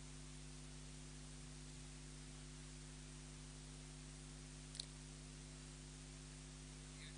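Near silence: a faint steady hum and hiss, with one faint click almost five seconds in.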